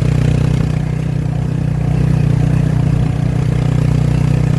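Motorcycle engine of a Filipino tricycle running steadily while riding, heard loud and close from the sidecar.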